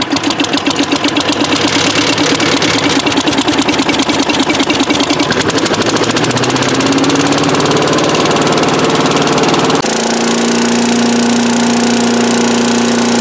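Small gasoline engine on a tow-behind leaf vacuum running just after starting, its speed climbing over several seconds as it is throttled up, with the impeller fan adding a rushing air sound. About ten seconds in it is heard running steadily at high speed, driving an impeller that is bent and out of balance.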